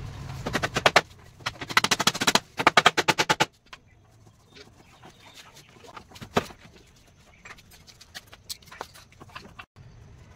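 Hammer tapping nails into wooden slats in quick runs of sharp strikes, several a second, which stop about three and a half seconds in. After that come only scattered light wooden knocks, one louder than the rest about six seconds in, as the wooden frame is moved.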